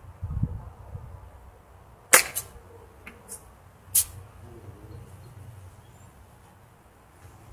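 Sharp clicks of a golf club striking balls on chip shots: a loud one about two seconds in and another about four seconds in, with fainter ticks between them. Low wind rumble on the microphone near the start.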